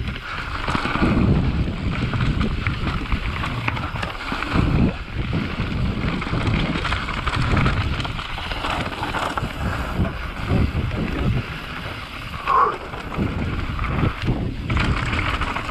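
Mountain bike ridden down a rough trail: wind buffets the microphone over the rumble of tyres on dirt and rock, with irregular knocks and rattles from the bike over bumps.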